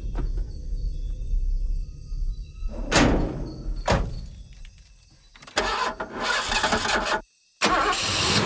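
Vehicle engine starting and running with a low rumble, punctuated by two sharp hits about three and four seconds in. Near the end comes a burst of loud, dense noise that cuts out abruptly for a moment and then resumes.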